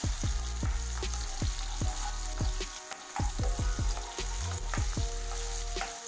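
Chopped capsicum and green chillies sizzling in hot oil in a pan, stirred with a spatula in repeated short strokes.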